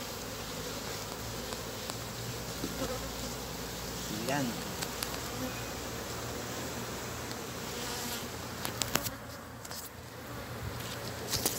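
Honeybees buzzing steadily around their exposed comb nest, with a few sharp clicks near the end.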